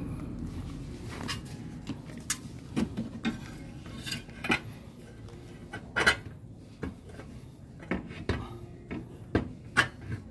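Irregular metallic clinks and knocks, a dozen or so sharp ones with the loudest about six seconds in, as the Honda Click scooter's exhaust muffler and its fittings are handled and fitted back over the rear wheel.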